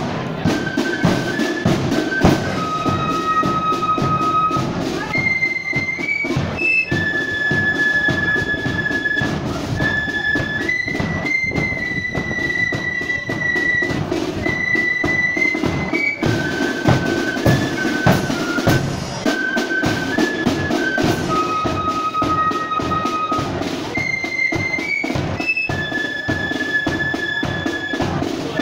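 Marching flute band playing a tune together on high flutes over a bass drum and side drums beating time. The melody moves in held notes, and the same phrase comes round again about halfway through.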